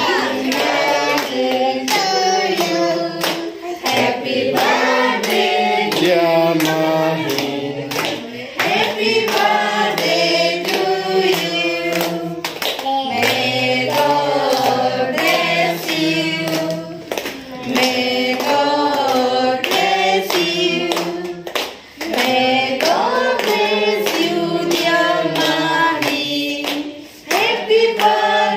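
A small group singing a birthday song together, clapping along in time.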